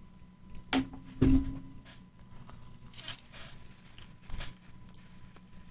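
Biting and chewing into a hot-sauce-covered chicken wing close to the microphone: a few short, sharp bites and crunches, the loudest about a second in, with quieter chewing between.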